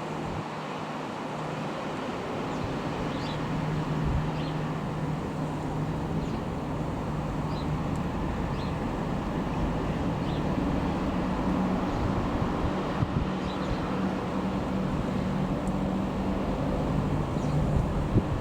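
Distant drone of an RAF Airbus A400M Atlas's four turboprop engines high overhead, a steady low hum slowly growing louder, with wind buffeting the microphone.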